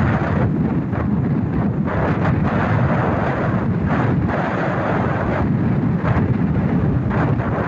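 Strong wind buffeting the microphone: a loud, continuous rumble with gusts that surge and fade every second or so.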